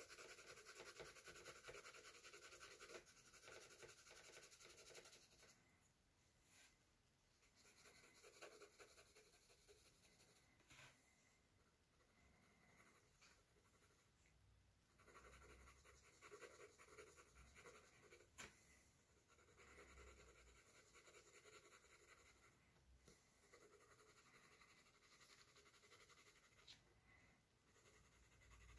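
Faint scratching of a colored pencil shading on sketchbook paper, in stretches with short pauses, and one faint click about two-thirds of the way through.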